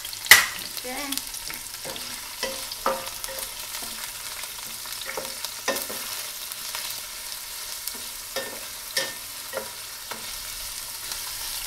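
Sliced onions and scallions sizzling as they fry in olive oil in a stainless steel pan, stirred with a wooden spatula that knocks and scrapes against the pan now and then, loudest just after the start.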